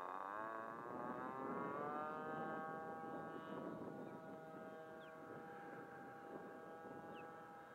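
Model airplane's .61 ABC glow (nitro) engine at full throttle on the takeoff run, its pitch dropping over the first second or so as the plane moves away. It then holds a steady drone that fades as the plane climbs into the distance.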